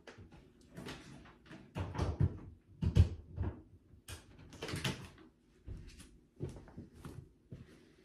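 A string of irregular knocks, bumps and rustles from someone moving about a room and handling things, the loudest thump about three seconds in.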